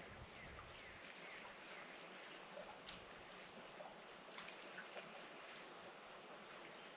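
Near silence: faint outdoor ambience, a soft even hiss with a few faint scattered ticks.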